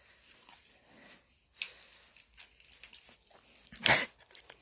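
Dog sniffing with its nose right at the phone: soft scattered rustles and clicks, then one loud, short sniff about four seconds in.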